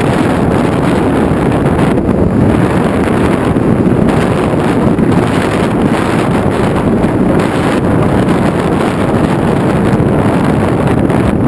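Loud, steady rush of wind buffeting the microphone of an FPV aircraft's onboard camera in flight, with no distinct motor tone coming through.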